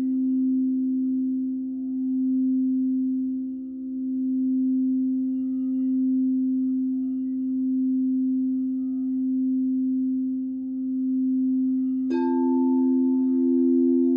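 Frosted quartz crystal singing bowl sounding one steady, deep tone as it is rimmed with a mallet, swelling and fading gently about every two seconds. Near the end a second crystal bowl is struck and rings on with a higher tone over the first.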